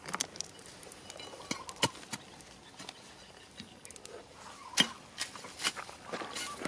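A wooden stick scraping and poking through dry, stony soil: irregular scratches and small clicks of grit and pebbles, with the sharpest knock about five seconds in.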